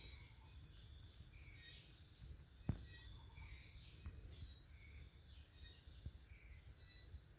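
Faint background birds chirping in short repeated calls, with one soft click about two and a half seconds in.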